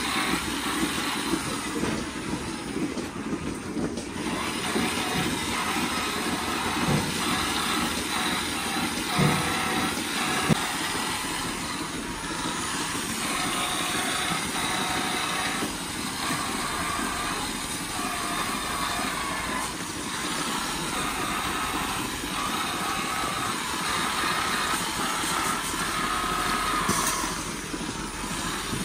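Milking parlour machinery running with a steady mechanical hum, with a few short knocks about a third of the way in.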